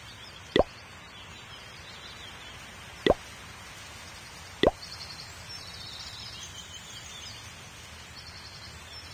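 Three short, sharp plops, each sweeping quickly upward in pitch, spaced a second or two apart, over a faint background with some high chirping.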